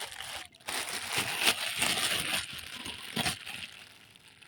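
Rustling and crackling with many irregular sharp clicks and slaps as freshly caught fish are handled and flap about. It is loudest in the middle and fades away near the end.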